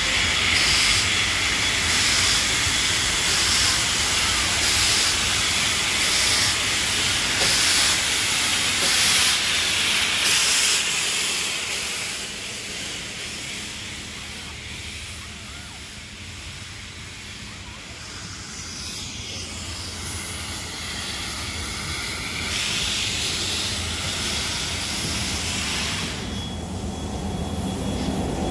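NSW D59-class steam locomotive 5917 passing close by, hissing loudly as steam blasts from its open cylinder drain cocks in regular pulses. The hiss eases off after about ten seconds as the carriages roll past, then swells again briefly later on.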